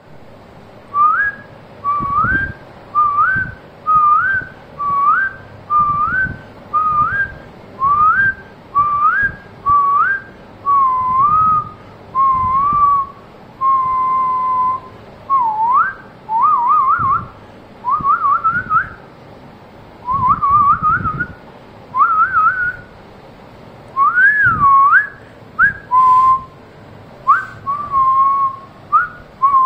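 A person whistling: short rising notes about one a second, then longer level notes and quick wavering trills in the second half.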